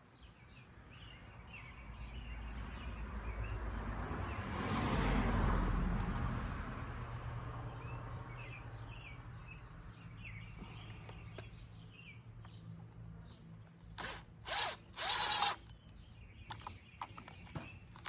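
Hand tool working a small bolt on a Stihl FS 45 string trimmer, with a few short, loud scraping strokes near the end as the bolt is run in. Earlier, a broad rumbling noise rises over a few seconds and fades away.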